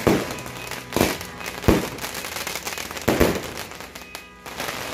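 Fireworks going off: four loud bangs spread over about three seconds, with lighter popping between them.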